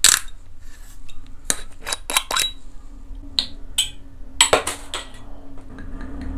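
A green glass soju bottle being handled: a sharp crack as the cap is twisted open, then a run of glass clinks and taps. From about five seconds in, soju pours steadily from the bottle into a small glass.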